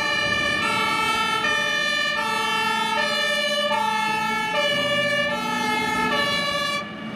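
German fire engine's two-tone siren (Martinshorn), alternating between two notes about every 0.7 s over the low rumble of the truck's engine as it moves off, stopping shortly before the end.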